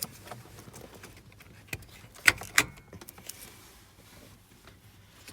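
A few sharp clicks and knocks, the loudest two about two and a half seconds in, a third of a second apart, as a replacement ignition switch module is worked into its housing on a steering column.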